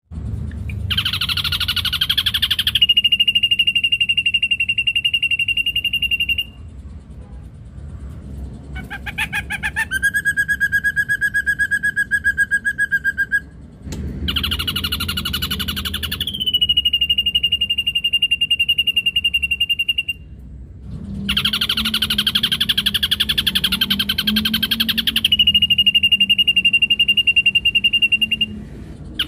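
Ashy drongo singing: four long phrases, each a rapid buzzy trill that settles into a steady held whistle lasting several seconds, with short pauses between them. The second phrase rises into a lower whistle than the others.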